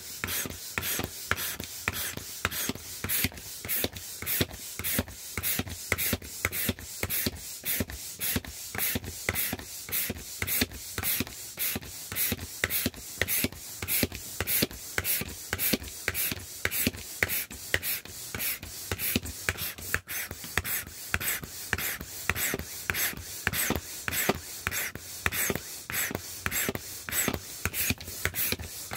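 Hand or foot air pump forcing air into a vinyl inflatable rooster in a quick, even rhythm of puffs, about two to three strokes a second.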